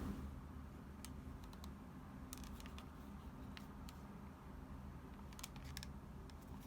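Keys of a Nokia 3395 mobile phone clicking as they are pressed: a dozen or so short, scattered clicks, some in quick runs, over a faint low hum.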